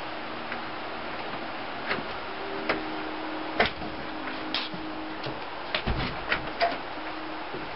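A screen door being opened and handled: scattered sharp clicks and knocks from its handle and latch, with a quick cluster of them about six seconds in, over a steady hiss.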